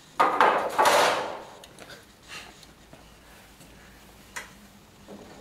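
The water still's removed cabinet lid being put down, a loud clattering scrape lasting about a second. A single sharp click follows a few seconds later.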